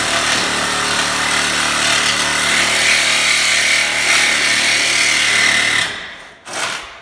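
Hand-held power tool running steadily as it cuts through the steel body of a 2018 VW Passat. It stops about six seconds in, then runs again briefly.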